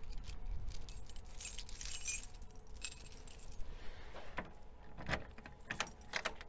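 A bunch of keys jangling on a ring as one is picked out, then a few sharp metallic clicks as the key goes into the vending machine's door lock.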